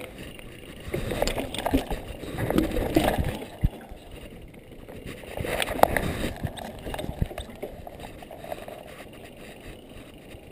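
Mountain bike ridden fast down a dirt trail: tyres rolling over the dirt while the chain and frame rattle and knock over bumps, with wind rumbling on the camera microphone. The rattling gets louder over rougher stretches about a second in and again around six seconds.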